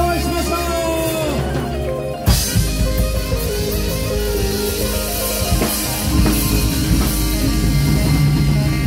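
Live funk band playing: drum kit, electric guitar, bass, saxophones and keyboard together. About two seconds in, a loud full-band hit lands and the groove carries on.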